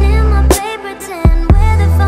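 Background music: an electronic remix with a deep, sustained bass, sharp drum hits and a bending melodic line over the top.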